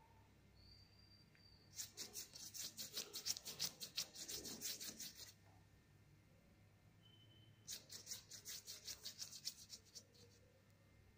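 Faint quick strokes of a paintbrush rubbing paint onto the painting surface, about six strokes a second. They come in two spells of about three seconds each, with a pause in between.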